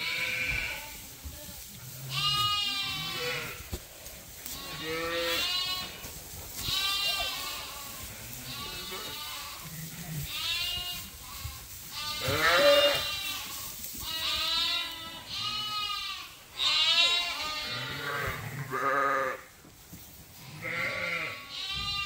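A flock of Suffolk ewes and lambs bleating over and over, one wavering call every second or two with several voices overlapping; the loudest comes a little past the middle.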